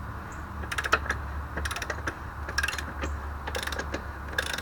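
Torque wrench ratcheting in five short runs of fine clicks, a little under a second apart, as the rear axle nut of a Yamaha R1 is being worked loose.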